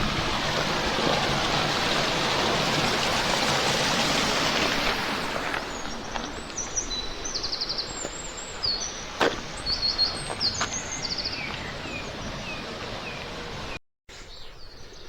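A steady rushing noise for the first five seconds or so, then birds singing outdoors: repeated high chirps and short trills, with a few falling chirps in between. The sound cuts out abruptly for a moment near the end.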